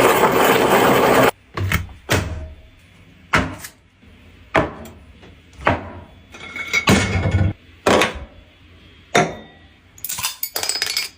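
Close-miked eating sounds: a series of short crunches and clinks, about one a second, with quiet between them. A dense loud sound cuts off about a second in.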